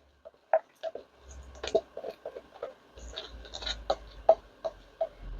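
Scattered light clicks and taps of plastic resin-crafting tools being handled, with a faint low rumble in the second half.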